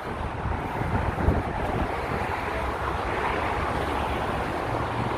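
Steady rumble and hiss of expressway traffic, with wind on the microphone.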